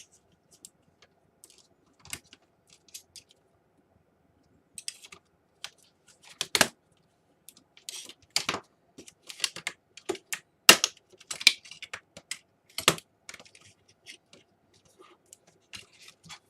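Irregular clicks, snaps and taps of hard plastic as a Dell Inspiron 11 laptop is taken apart by hand, its keyboard and case parts pried and handled. Sparse at first, the clicks come thicker in the second half.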